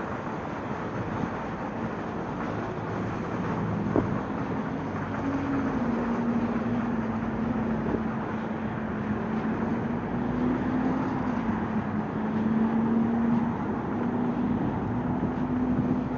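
City street traffic noise, with a steady low engine hum that sets in about four seconds in and wavers slightly in pitch. A single sharp click comes at the same moment.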